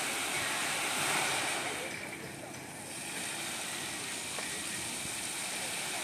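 Water jets of a large lake fountain rushing and splashing down, a steady hiss of falling water that drops quieter about two seconds in and then picks up again.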